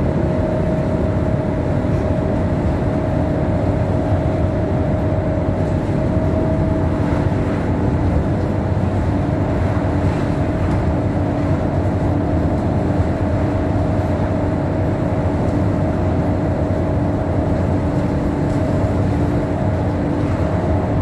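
Scania Solar single-deck bus driving at a steady pace, heard from inside the saloon: a constant engine and road rumble with a steady, even whine over it.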